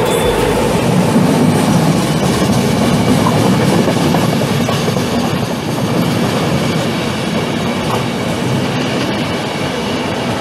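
Intercity night passenger train's coaches running past over a newly laid railway turnout, steady rolling noise of wheels on rail with a clickety-clack over the joints.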